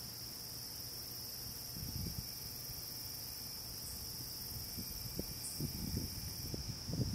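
Night insect chorus: a steady, unbroken high-pitched trill, with a fainter, even higher hiss that stops near the end. Soft low bumps and rumbles come about two seconds in and again over the last two seconds.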